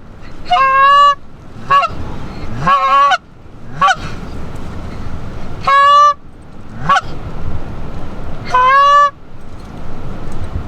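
Goose honking: about seven loud, close calls, longer two-note honks alternating with short clucks, over a steady rush of wind.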